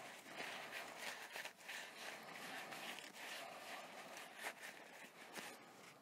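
Paper towel rubbed over a zinc-plated steel Tema coupler, wiping off the residue left from scrubbing off corrosion: faint, repeated rubbing strokes, with a light click a little past the midpoint.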